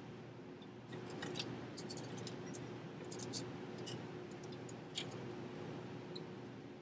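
Scattered light metallic clicks and scrapes as a new NOx sensor is handled and threaded by hand into its exhaust bung on a Paccar MX diesel, over a steady background hum.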